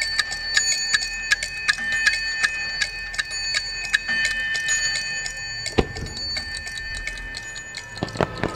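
A clock-ticking effect in the fireworks show's opening music: even ticks, about three a second, over held high tones. A single low thud comes about six seconds in, and the first fireworks launch with sharp reports near the end.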